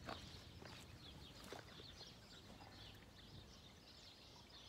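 Faint birdsong of small birds, many short chirps, with two soft clicks in the first couple of seconds.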